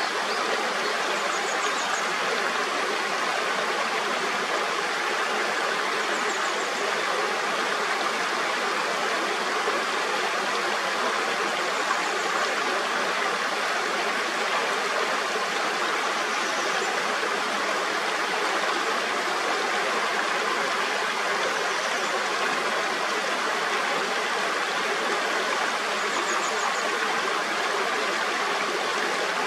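Mountain stream rushing steadily over rocks, an even, unbroken water noise. Faint short high chirps recur about every five seconds above it.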